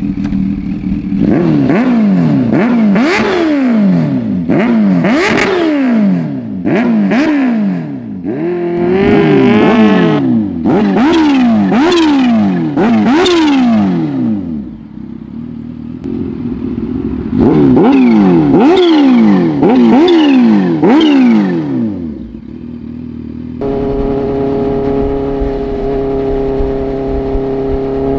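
Kawasaki Ninja H2's supercharged inline-four engine being revved in repeated sharp blips, the pitch shooting up and dropping back about once a second. The revs are held high briefly once. Near the end the engine settles into a steady note.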